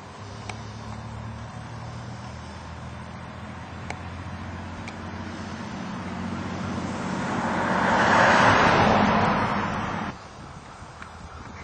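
Steady low motor hum, with the noise of a passing vehicle swelling to a loud peak and then cutting off abruptly near the end.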